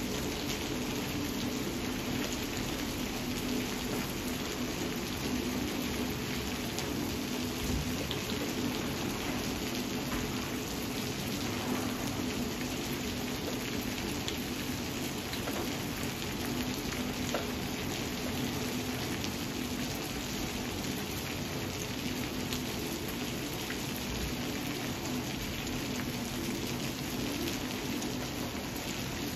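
Steady thunderstorm rain falling: an even hiss of rain with scattered drip ticks.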